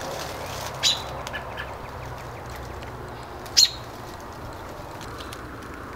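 Short, sharp bird calls over a steady background hiss: one about a second in, a few faint ones just after it, and a louder one a little past the middle.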